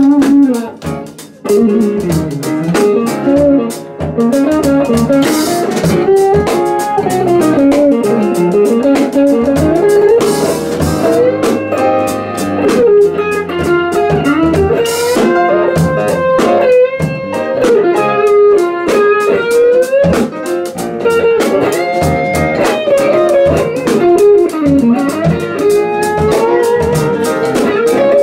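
Live band music: a solid-body electric guitar plays a lead line full of bent notes and quick runs, over electric bass and a drum kit.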